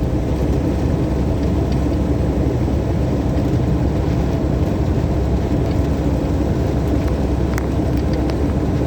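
Semi truck driving at a steady speed: continuous engine drone and road noise heard from inside the cab, with one steady hum and no changes in speed.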